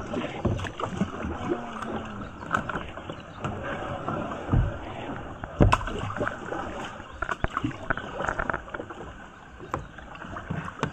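Kayak paddling on a river: paddle blades dipping and splashing in the water, with scattered sharp knocks through the strokes.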